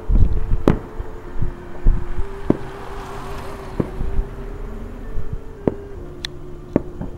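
Distant fireworks going off: about five sharp bangs, a second or two apart, over a steady low hum, with a soft hiss that swells and fades in the middle.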